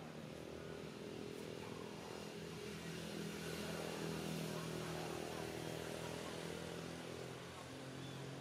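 An engine running steadily, growing louder toward the middle and then easing off a little.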